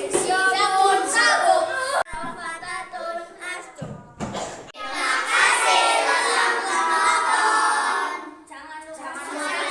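Children singing together, with a short break about four seconds in.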